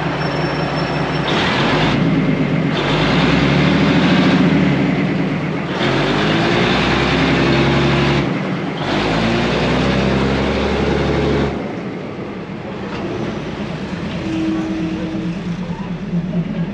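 Diesel railcar passing slowly at close range, its underfloor engine running with a drone that rises and falls as the carriages go by. The engine noise drops away about eleven seconds in.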